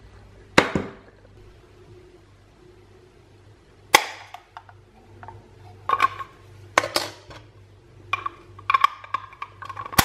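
Sharp clicks and knocks of a plastic-and-stainless-steel box grater being handled and taken apart. The clicks come singly at first, then in quick clusters over the last few seconds.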